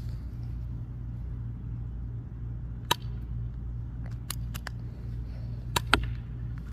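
Airsoft gun being fired at a target: several sharp, short snaps, one about three seconds in, a few fainter ones after it, and two loud ones in quick succession near the end, over a steady low rumble.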